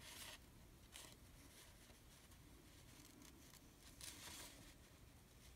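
Near silence with a few faint, brief rustles: one at the start, one about a second in and a longer one about four seconds in.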